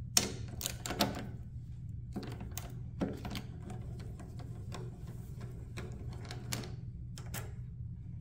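Hand ratchet with a 10 mm socket on an extension clicking in short, irregular runs while loosening the motorcycle's fuel-tank hold-down bolts, the sharpest click just after the start.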